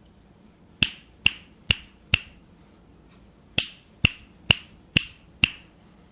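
Finger snaps: four crisp snaps about half a second apart, a pause of about a second and a half, then five more at the same pace.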